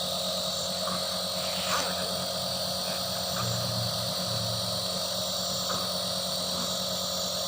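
Small electric compressor of a nebulizer running steadily, with a constant hum and hiss.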